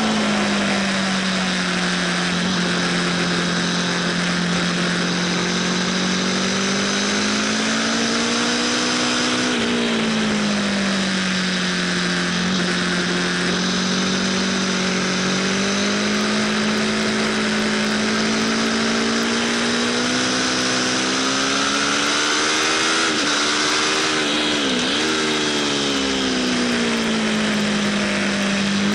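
Aprilia RSV4 Factory V4 engine running under way on track, its pitch slowly rising and falling, with one quick dip and recovery about 25 seconds in. Heavy wind rush runs underneath.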